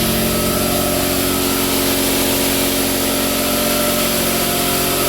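Quincy 5 hp two-stage air compressor running steadily with a fast, even pulsing, still pumping up tank pressure before its cut-out.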